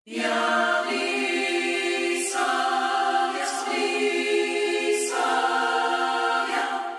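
A choir singing slow, held chords that shift to a new chord every second or two. It starts suddenly and begins to fade out at the very end.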